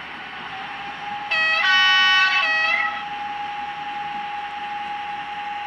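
Digital sound decoder in a model SNCF X2800 diesel railcar sounding its horn through the model's small loudspeaker: three notes, low, high, low, about a second and a half in all. Underneath runs the steady decoder running sound with a thin high whine.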